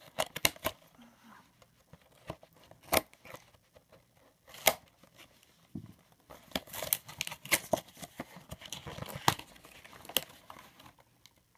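Scissors snipping through the plastic shrink-wrap on a cardboard trading-card box, then the wrap being torn and crinkled off as the box is opened: irregular sharp snips, clicks and crackles, busiest in the second half.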